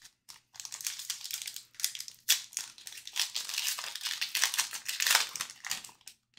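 The wrapper of an Upper Deck SP Authentic hockey card pack being torn open and handled: a continuous run of crinkling and crackling, with its sharpest crackles about two and a half seconds in and again around five seconds in.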